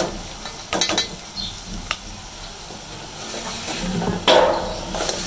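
Steel ladle scraping and clinking against a metal cooking pot as boiled urad dal is tipped into hot fried masala and stirred in, over a low sizzle. A few sharp clinks come in the first two seconds, and a louder, longer stirring scrape comes about four seconds in.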